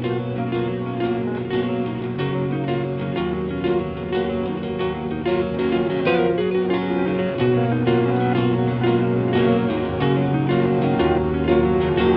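Guitar music: picked guitar notes over a bass line that moves to a new held note every couple of seconds.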